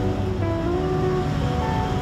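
Background music with held notes that change every half second or so, over a steady low rumbling noise.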